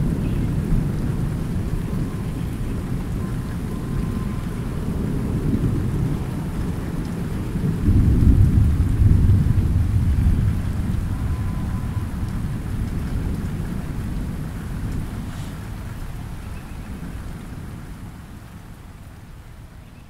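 Thunder rumbling low under steady light rain falling on pond water. The rumble swells about eight seconds in, then slowly dies away toward the end.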